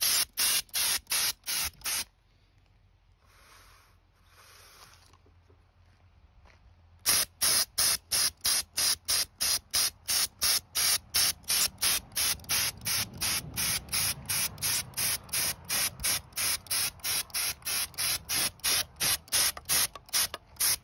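Air spray gun with a cup of glaze beneath it, spraying glaze in a rapid pulsing hiss of about four puffs a second. The spraying stops about two seconds in, with two faint short hisses during the pause, and starts again about seven seconds in.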